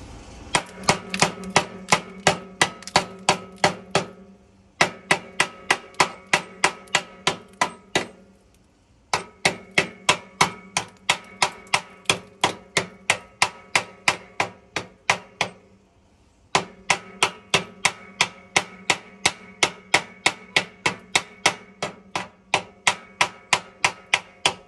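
Slag hammer chipping slag off fresh stick welds on a steel mower frame: quick, even metal-on-metal strikes, about three a second, with the frame ringing under each blow. The strikes come in four runs with brief pauses between them.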